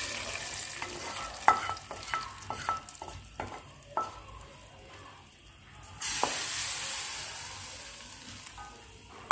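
Hot ghee tadka of fried onions poured into a pot of masoor dal, sizzling and fading away. A spoon then knocks and scrapes on the metal tadka pan in a run of sharp ringing taps, and about six seconds in a second burst of sizzling starts suddenly as more of the hot tadka goes in, fading again.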